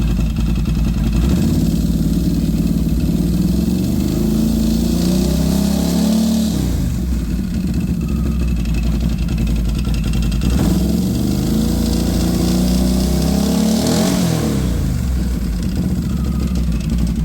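Can-Am Renegade ATV's V-twin engine, warmed up, revved twice from idle: each rev climbs over several seconds and then drops back quickly to idle. It is the first run-up of a freshly fitted STM aftermarket primary clutch.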